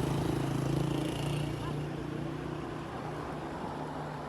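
A steady low engine hum that slowly fades.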